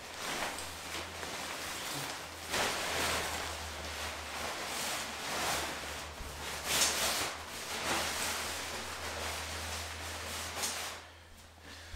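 Nylon tent rain fly rustling and swishing as it is handled and pulled over the tent, swelling louder several times.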